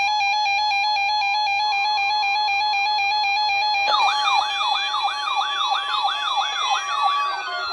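NOAA Weather Radio public warning test signal: electronic alarm tones that first alternate rapidly between a high and a low pitch, then from about four seconds in switch to a rapid rising-and-falling wail, about three cycles a second, with a falling glide near the end.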